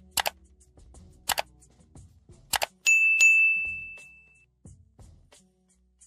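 Subscribe-button sound effect: three sharp mouse clicks about a second apart, then a notification bell dinging twice in quick succession and ringing out for about a second.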